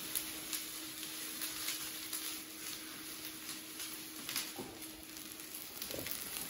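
Pizza dough frying in hot oil in a frying pan on a gas burner: a steady sizzle with frequent small crackling pops.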